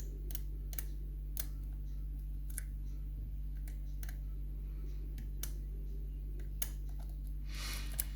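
A homemade lock pick probing the pins inside an ABS Pioneer high-security cylinder lock: about a dozen small, sharp metal clicks and ticks at irregular intervals as it searches for a binding pin, with a brief scraping sound just before the end. A steady low hum runs underneath.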